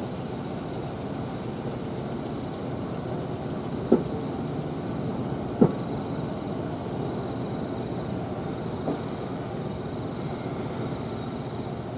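Passenger train coach rolling slowly, heard from inside: a steady rumble with two sharp clacks about a second and a half apart.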